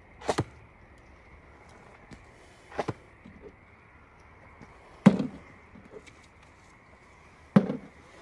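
Four sharp knocks about two and a half seconds apart, each with a short tail, the third a little past halfway the loudest.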